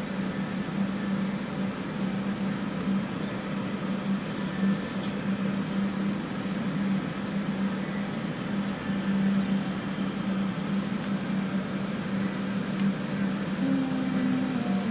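Several fans running steadily to clear soldering fumes, a constant hum over an even rushing noise. A brief high hiss about four and a half seconds in.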